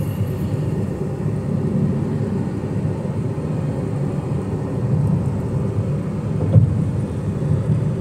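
Steady low rumble of road and engine noise from a moving car, with one brief thump about six and a half seconds in.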